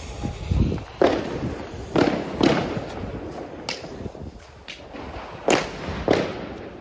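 Argento Lilac consumer firework going off, its shots fired one after another, about one or two a second, each a deep thump with a sharp crack.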